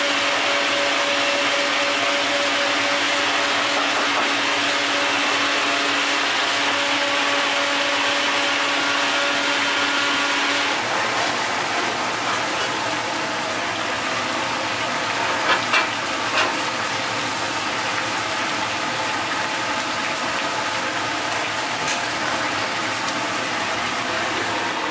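Steady kitchen noise: an even hiss with a motor-like hum holding one steady tone for about the first ten seconds, then plain hiss with a few light clicks or knocks near the middle.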